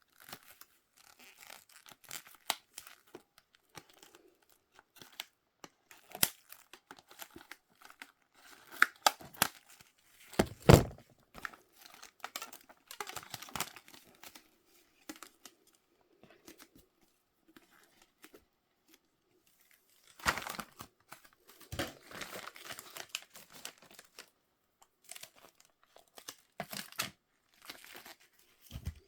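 Toy packaging being torn open and crinkled by hand: irregular crackles, rips and rustles, with a heavier knock about ten seconds in and another around twenty seconds in.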